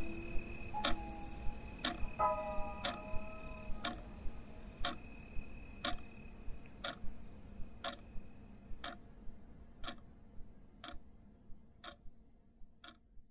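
Clock ticking with a steady tick-tock that fades out gradually toward the end.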